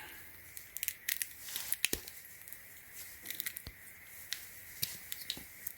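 Small plastic items and their packaging being handled: scattered light clicks and crinkling rustles.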